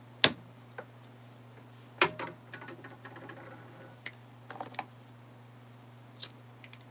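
Scattered sharp clicks and clacks from handling a small refillable hand torch just after refilling it. The loudest click comes right at the start, with small clusters about two and four and a half seconds in. A steady low hum runs underneath.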